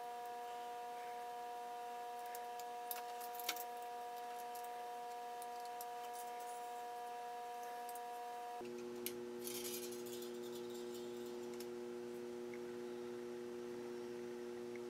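Faint small metallic clicks and light jingling as thin music wire is handled and threaded through a lathe tool holder, over a steady hum that drops to a lower pitch a little over halfway through.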